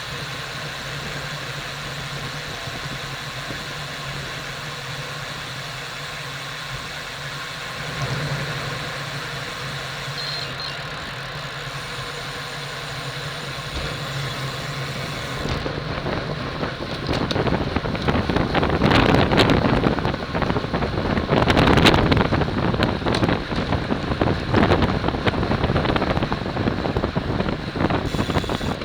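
Steady low hum. From about halfway, wind rushes and buffets over the bike-mounted camera's microphone, growing louder and gustier as the bike gathers speed.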